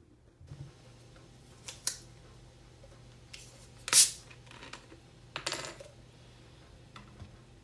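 Ice in a plastic cup cracking and shifting after a canned drink has been poured over it. A few sharp cracks and clinks come irregularly, the loudest about four seconds in.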